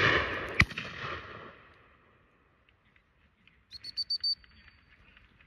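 A shotgun shot about half a second in, its report rolling away over the next second or so. About four seconds in, a gundog whistle gives a quick run of short pips.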